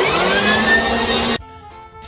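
A power blower's motor starting up, its whine rising in pitch as it spins up, then cutting off suddenly after about a second and a half.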